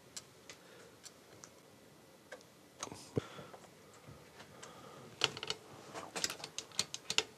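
Light metallic clicks and ticks of small parts being fitted to the steel and brass changer mechanism of a 1963 Dansette Bermuda record player, with a screwdriver at work on a screw in one of its plates. A few scattered clicks at first, then a quicker run of clicks from about five seconds in.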